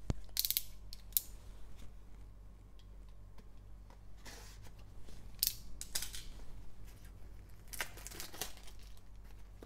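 Plastic shrink wrap on a trading-card box crinkling and crackling under gloved hands in short, scattered bursts, busiest about eight seconds in as the wrap is worked open.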